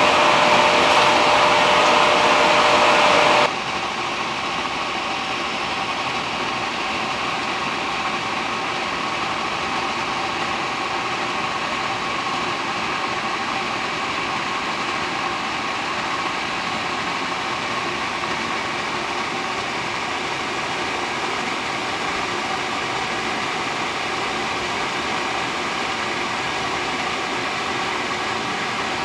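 Large commercial Power Flame oil burner running after start-up, on the first run since its burner motor was replaced: a steady, loud rush of blower and fan noise with a hum under it. About three and a half seconds in the sound drops suddenly to a lower, duller steady level.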